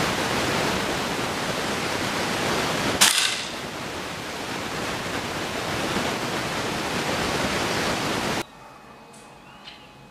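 A single sharp air-rifle shot about three seconds in, over a steady hiss that cuts off suddenly near the end.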